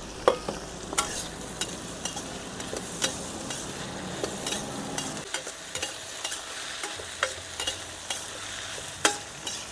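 Sliced bamboo shoots and cabbage stir-frying with cured pork in a hot pan: a steady sizzle broken by irregular scrapes and clinks of the stirring utensil against the pan.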